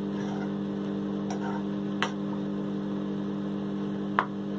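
A steady appliance hum with several pitched tones, with a few light clicks of a steel ladle against the wok while stirring.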